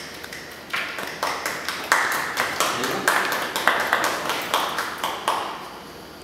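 Hand clapping, a slightly irregular run of about four claps a second that echoes in the room and stops about five and a half seconds in.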